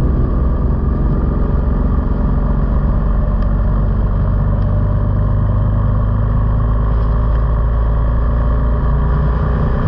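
Steady low rumble of a moving motor vehicle, even throughout with no revving or breaks.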